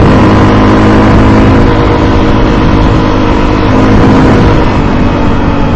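Motorcycle engine running at a steady cruise while riding, over a heavy rush of wind and road noise on the microphone.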